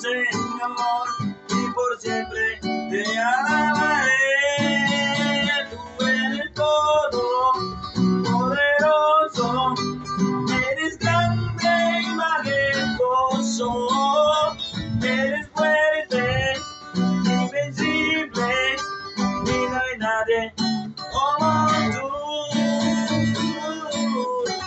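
Classical guitar strummed as accompaniment to a man singing a slow worship song.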